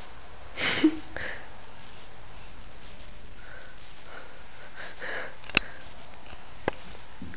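Shih tzus playing rough, giving short noisy huffing breaths about a second in and again around five seconds in. Two sharp clicks follow near the end.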